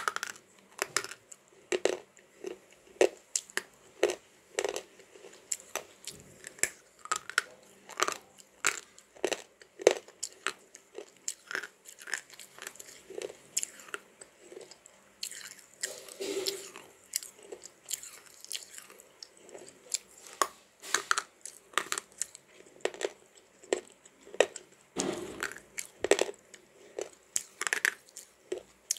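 Close-up crunching and chewing of slate pencil pieces: sharp, irregular crunches about one to two a second as the brittle slate is bitten and ground between the teeth, with a few longer grinding stretches.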